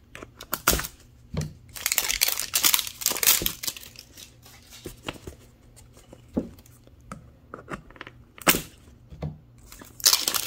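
Paper shell of an LOL Surprise doll ball being torn and peeled open by hand: rough ripping, longest about two seconds in, with scattered sharp clicks and crinkling in between.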